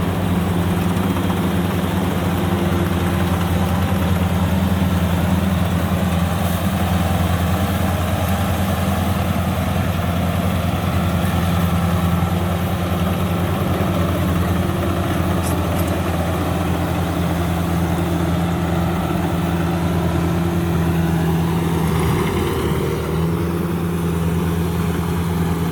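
Rice combine harvester engine running steadily under load, its pitch sagging briefly near the end and then recovering.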